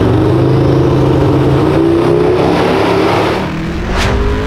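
A high-performance V8 engine revs up and is held at high rpm, with a steady engine note that eases off after about three and a half seconds. About four seconds in comes a short sound-effect whoosh.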